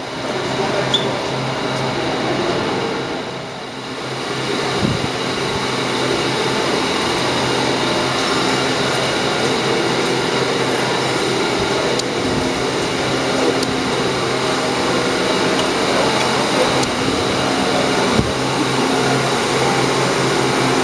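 Steady whirring drone of ventilation fans and running machinery, with a low hum underneath and a few soft knocks.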